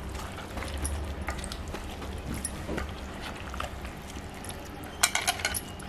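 Hands squishing and turning raw chicken pieces in a wet yogurt-and-spice marinade in a steel pot, with light clicks against the metal and a brief cluster of clicks about five seconds in. A low steady hum runs underneath.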